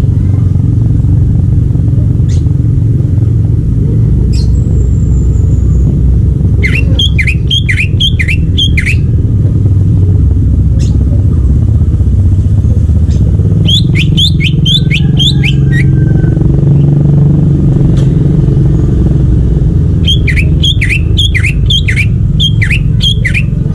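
Green leafbird (cucak ijo) singing three short phrases, each a quick run of six or seven sharp falling notes, about seven, fourteen and twenty seconds in. Under the song runs a loud, steady low rumble.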